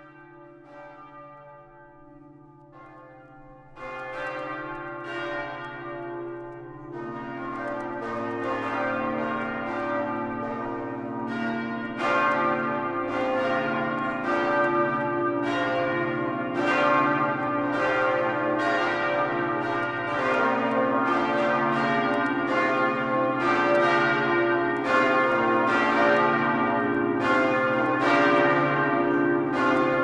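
The church bells of the São Bento Monastery in Rio de Janeiro ringing together. A few slow strokes at first, then the ringing grows louder and denser as more bells of different pitches join a few seconds in, their strokes overlapping and ringing on.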